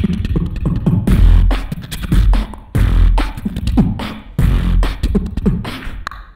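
Beatboxing into a handheld microphone through a PA: deep bass kicks and sharp clicking snare and hi-hat sounds in a dense rhythm, with short sliding pitched tones woven between them.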